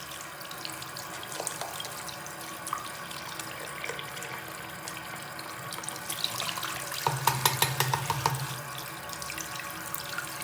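Tap water running steadily into a sink, splashing through a handheld vacuum's dust filter as it is rinsed clean. About seven seconds in it gets louder for a second or so, with a few knocks.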